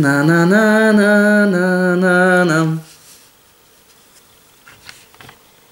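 A person humming a slow tune in long held notes, breaking off abruptly about three seconds in; after that only a few faint light ticks.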